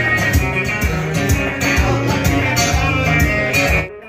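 Live band music with guitar over bass and a drum beat, cutting off suddenly near the end.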